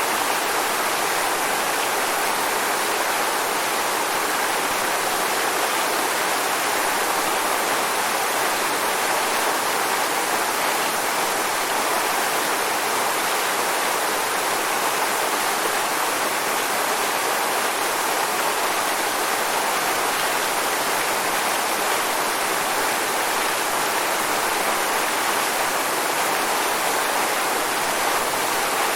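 Waterfall: water falling and splashing in a steady, unbroken rush with no changes.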